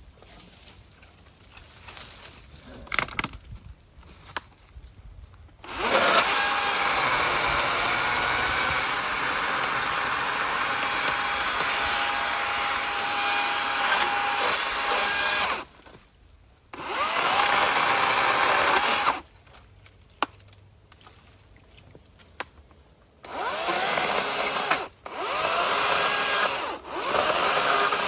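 DeWalt 60-volt brushless battery chainsaw cutting buckthorn. After a few quiet seconds with light clicks, the saw runs through one cut of about ten seconds, then several shorter cuts of a few seconds each, each starting and stopping abruptly.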